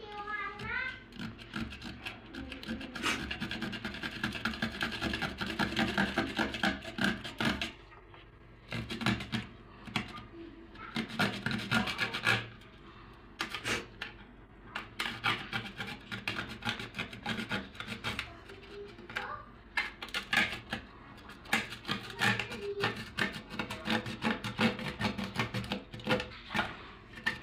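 Hand tool scraping and rubbing in stop-start runs of quick strokes, with short pauses between the runs.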